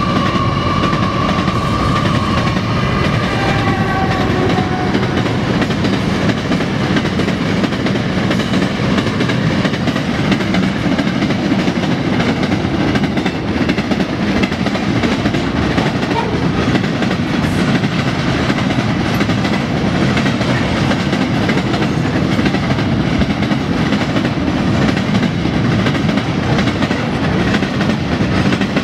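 Freight train passing close by: the last of its Pacific National NR-class diesel-electric locomotives go past with a high whine that fades in the first few seconds. Then a long rake of loaded steel-coil flat wagons rolls by with a steady rumble and clickety-clack of wheels over the rail.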